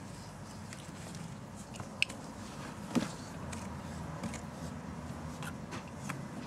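A kitten playing with a wand toy: a few light taps and clicks as it bites and bats at it, with a sharp click about two seconds in and a louder knock about a second later, over a low steady hum.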